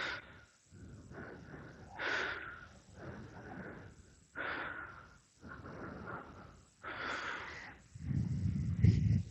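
A person breathing heavily close to the microphone, in repeated noisy breaths about a second apart, while starting wheel nuts by hand. A louder low rumble comes about eight seconds in.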